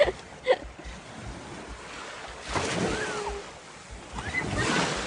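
Sea waves washing onto a beach, with two swells of surf: one about halfway through and another near the end. Wind buffets the microphone.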